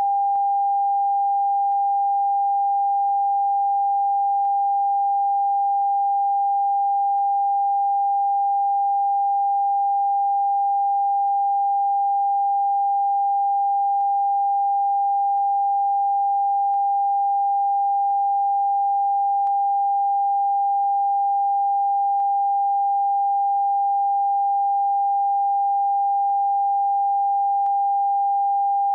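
Television test-card tone: a single steady pure beep just under 1 kHz, held without a break or change in pitch, the end-of-broadcast signal sent out with a test card.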